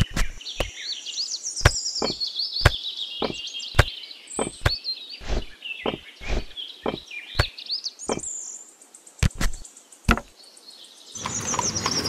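Miniature clay bricks clicking against each other as they are picked up and dropped one by one into a small woven bamboo basket: about twenty sharp, irregular clicks, thinning out near the end. High chirping runs behind them.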